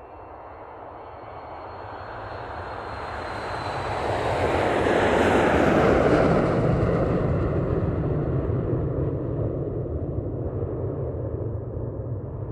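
Jet airplane flying past. The engine noise swells to its loudest about five to six seconds in, then slowly fades, and a thin high turbine whine drops a little in pitch as the plane approaches.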